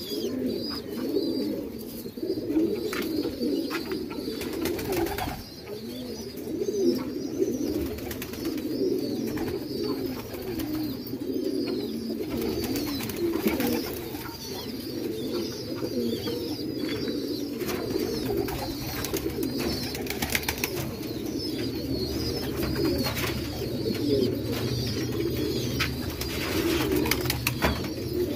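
A flock of domestic fancy pigeons cooing together, many overlapping low warbling coos without a break, with scattered short clicks among them.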